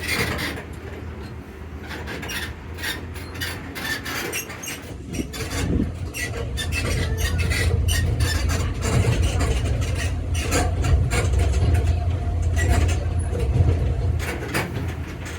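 Zoomobile tour vehicle running with passengers on board: a low rumble that grows louder about six seconds in, with frequent rattles and clicks throughout.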